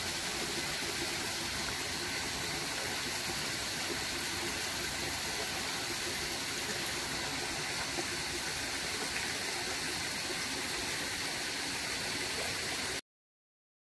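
Steady rushing of a stream running among boulders, an even wash of water noise that cuts off abruptly near the end.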